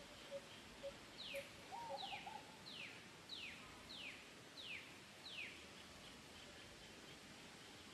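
Faint birdsong: a low note repeated about twice a second that stops about two seconds in, then a run of seven sharp whistles, each falling in pitch, with faint high chirps behind.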